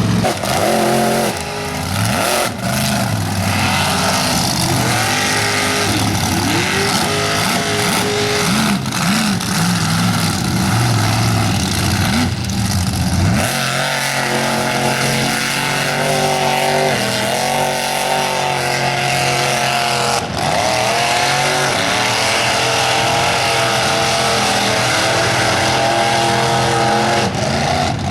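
Supercharged engine of a mega truck revving up and down repeatedly as it churns through a mud bog. About halfway through it climbs and is held at high revs with smaller swings.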